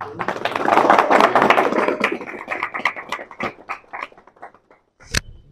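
A group of people clapping together: the applause swells, then thins out to scattered claps and dies away. A single sharp click comes near the end.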